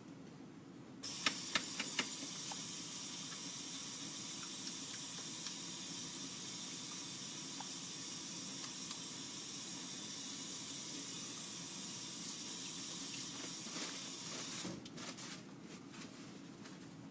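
A steady rushing hiss switches on about a second in with a few sharp clicks, holds at an even level, and cuts off suddenly near the end, followed by a few clicks.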